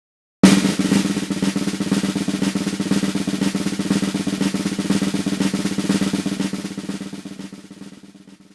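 Rapid drum roll sound effect. It starts suddenly just under half a second in, holds steady, then fades away over the last two seconds.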